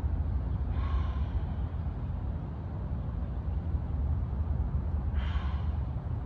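Two audible breaths, one about a second in and one near the end, over a steady low rumble.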